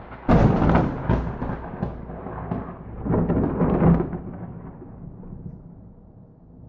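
Thunder: a sharp, loud crack of a nearby lightning strike about half a second in, crackling, a second peak around three to four seconds, then a low rumble fading away.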